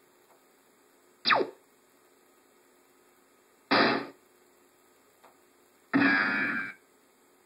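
Three short, low-fidelity sound effects from a PowerPoint 97 slideshow, played through the computer's speakers: a quick downward-sliding tone about a second in, a breathy sigh near four seconds, and a longer sound with a held pitch about six seconds in.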